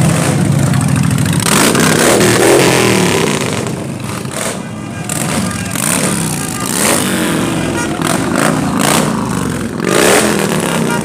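Cruiser motorcycles riding past close by, one after another, their engines revving and rising and falling as each goes by.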